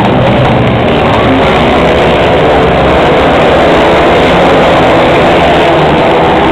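A pack of dirt-track racing motorcycles running hard around the oval, engines loud and steady.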